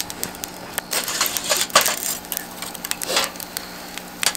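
Metal skewers clinking and scraping against the grill grate of a small fire pit as they are laid over the flames, with sharp clicks of the fire crackling throughout.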